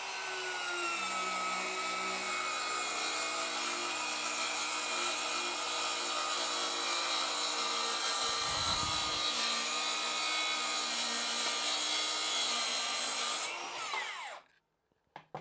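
Bosch GKS 185-LI cordless brushless circular saw with a Top Precision Multi Material blade cutting through 18 mm chipboard: a steady high motor whine with the rasp of the blade in the board. Near the end the trigger is released and the motor winds down to a stop, its pitch falling.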